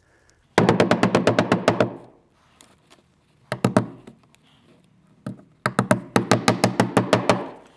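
Hammer driving 1¼-inch aluminum roofing nails through aluminum F channel into the wall: two quick runs of rapid ringing blows, with a few single taps between them.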